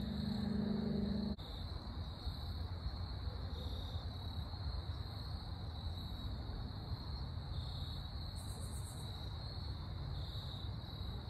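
Steady, high-pitched chorus of insects chirping, over a low background rumble. A held musical drone cuts off abruptly about a second in.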